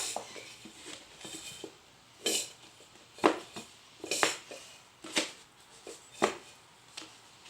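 A utensil knocking and scraping against a bowl in a series of short, sharp strokes about a second apart, as slime ingredients are mixed.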